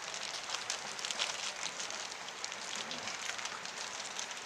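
Light rain pattering, with many small scattered ticks of drops.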